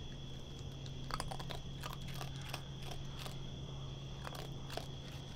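Raccoon chewing and crunching food: irregular crisp crunches starting about a second in, over a steady low hum.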